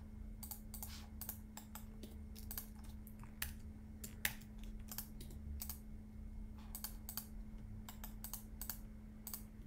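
Computer keyboard keys and mouse buttons being pressed in scattered, irregular clicks and taps while working keyboard shortcuts, over a faint steady low hum.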